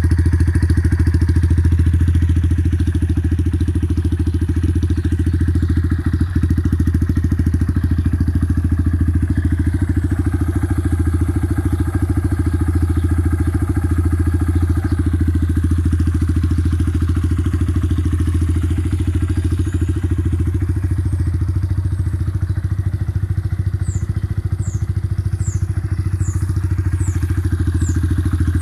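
Honda MSX125 (Grom)'s single-cylinder four-stroke engine idling steadily through an aftermarket Black Widow stainless exhaust, its low note holding the same pitch throughout with no revs.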